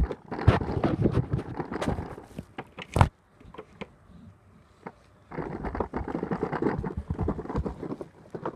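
Hard plastic wheels of a toddler's ride-on toy rolling and rattling over a rough concrete path, in two stretches separated by a lull, with a sharp knock about three seconds in.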